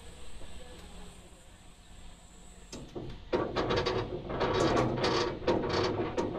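Train running on the track: after a low steady hum, a loud clatter of wheels knocking over the rail joints sets in about three seconds in and keeps going at several knocks a second.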